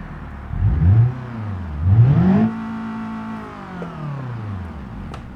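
Old Ford car engine, just started, revved twice with the gas pedal: a short rev that falls back, then a higher rev held for about a second before it slowly drops back toward idle.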